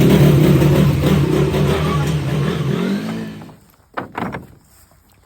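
A vehicle's engine running steadily at low revs during a tight multi-point turn, dying away about three and a half seconds in, followed by two short knocks.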